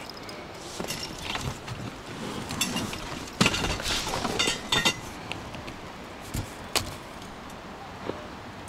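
Handling noises from fishing gear and a small rowing boat: scattered knocks, light metallic clinks and rustling, busiest about halfway through, with a couple of single knocks after.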